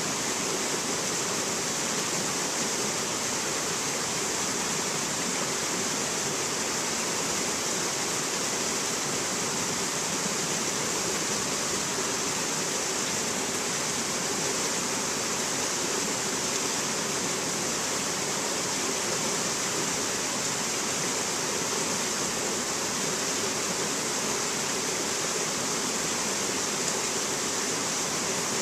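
Stream rushing and cascading over boulders and rock ledges: a steady, unbroken hiss of moving water, brightest in its upper range.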